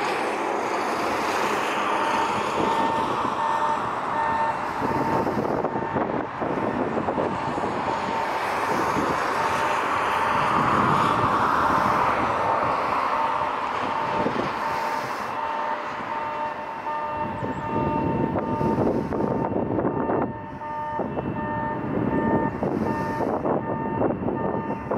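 Boeing 767 jet on final approach: the steady noise of its engines mixed with wind on the microphone, swelling about halfway through. A steady high-pitched tone with overtones runs through it.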